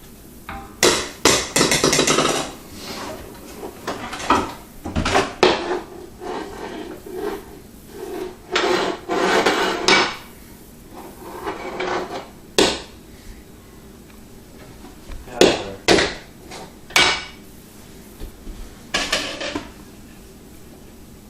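Irregular bursts of knocking and banging on a hard surface, with rapid clusters of knocks and several single sharp knocks later on.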